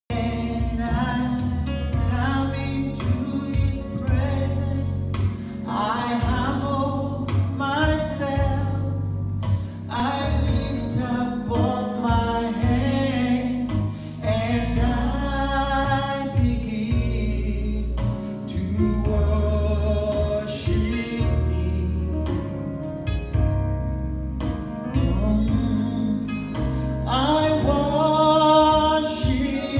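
Gospel singing through microphones over amplified accompaniment with a heavy bass line: a man's voice leads and children's voices sing with him.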